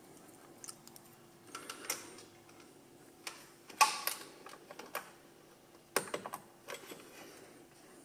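Scattered small clicks and rattles of a plastic electrical connector and test leads being handled on the intercooler fan's plug, loudest in a short cluster about four seconds in and again around six seconds. The fan, wired straight to the battery, does not run: it has failed.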